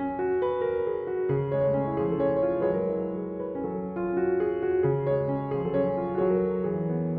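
Background instrumental music played on piano: a melody of changing notes over a bass line.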